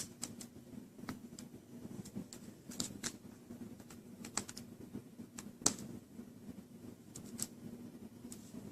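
Scattered light clicks and ticks of a small screwdriver snugging the screen's mounting screws on a laptop lid, with small plastic parts being handled.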